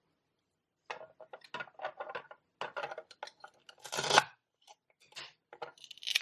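Plastic toy food being handled and Velcro-joined pieces pulled apart: a string of short crackly rasps and clicks, with the loudest rip about four seconds in.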